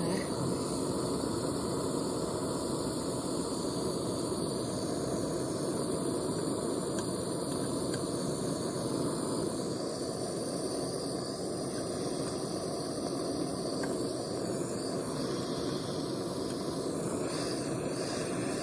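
Gas torch flame burning with a steady, even rush, heating silver on a soldering brick to bond gold foil to it.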